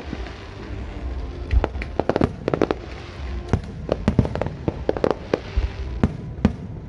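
Fireworks display: aerial shells bursting in a rapid string of sharp bangs, many coming in quick clusters of two or three.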